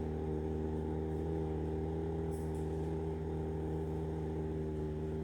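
A person humming one long, steady low note through closed lips, the held hum of a pranayama breathing exercise.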